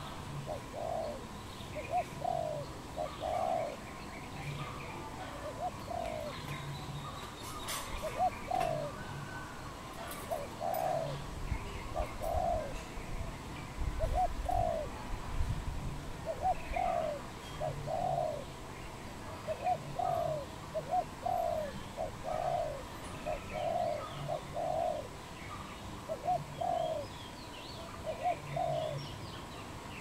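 Spotted dove cooing: soft coos repeated in short phrases of two or three notes, a phrase every second or two. Faint chirps of other small birds behind, and a low rumble in the middle.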